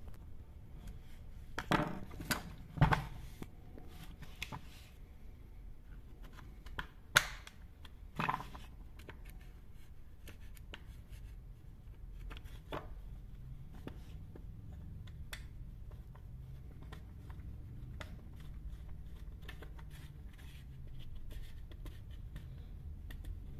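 Scattered clicks and knocks of hard plastic as a chainsaw's top cover and housing parts are handled and fitted back on during reassembly. The loudest knocks come about two to three seconds in and again about seven seconds in, followed by lighter ticks over a faint low hum.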